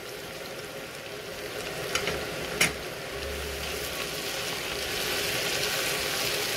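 Sliced onions frying in oil in a pan, a steady sizzle that grows gradually louder as mint leaves are stirred in with a wooden spatula. There are two sharp knocks of the spatula against the pan at about two and two and a half seconds in, and a faint steady hum underneath.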